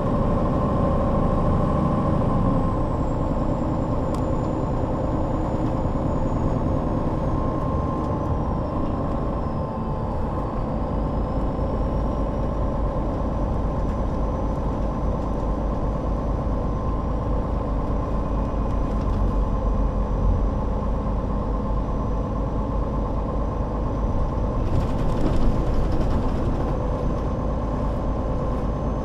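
2004 MAN NL 263 city bus's diesel engine running steadily, with a thin high whine that slides down over the first ten seconds and then climbs back up. There is a short hiss about three-quarters of the way through.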